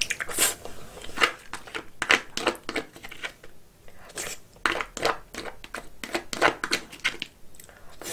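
Close-miked chewing and mouth sounds of someone eating crab from a wooden spoon: wet smacks and sharp clicks, a few every second.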